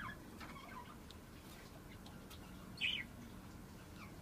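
Budgerigar chirping: a few faint, short, high chirps, with one clearer chirp about three seconds in.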